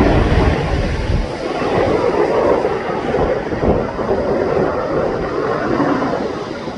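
Strong gusting wind buffeting the microphone, a loud, uneven rumble that swells and eases.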